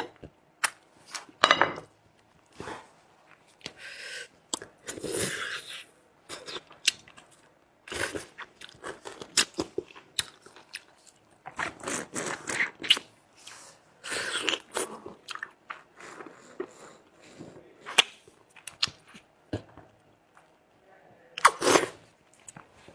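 Close-miked eating: irregular bites, crunches and chewing, with sharp clicks scattered throughout and a louder crunch near the end.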